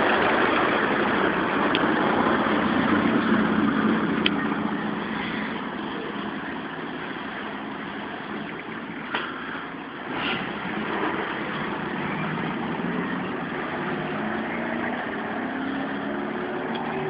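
Homemade motorcycle powered by a Ford Corcel four-cylinder car engine, running and growing louder as it rides up close near the end. Loud road noise fills the first few seconds.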